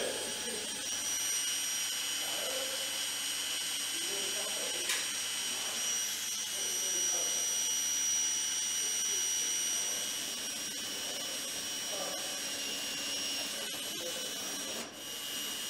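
Workshop background sound: a steady high-pitched machine whine over a hiss, with faint distant voices and a single sharp click about five seconds in.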